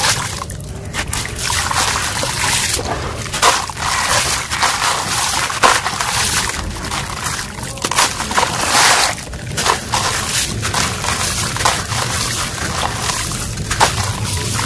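Wet, gritty crumbled concrete scooped up by hand and let fall back into a tub of water: sloshing, trickling and splashing of grit into water in repeated swells.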